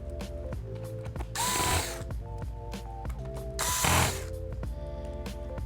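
Background music with a steady beat: held notes that change pitch in steps, and a swishing hit that comes back about every two and a half seconds.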